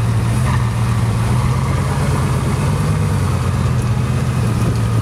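Bugatti Veyron Grand Sport Vitesse's quad-turbocharged W16 engine running at idle, a steady low hum that lifts slightly in pitch in the middle.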